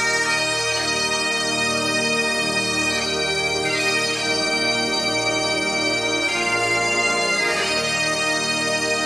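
Bagpipe music, with steady drones under the melody.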